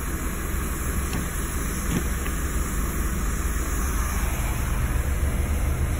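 Scania diesel engine idling steadily, heard from inside the cab as a low even rumble. There are two faint clicks about one and two seconds in.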